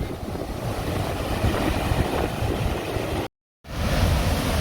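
Steady rushing of the Düden river's water flowing toward the falls. It breaks off completely for a moment a little over three seconds in, then resumes slightly louder.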